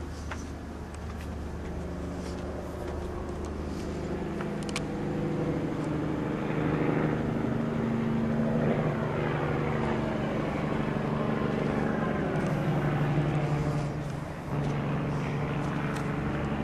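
Steady engine noise of a motor, swelling through the middle and easing slightly near the end, with a short dip about fourteen seconds in.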